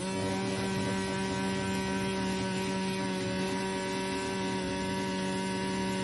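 Electric immersion hand blender running at a steady pitch with its blade in hot milk, whipping it into froth.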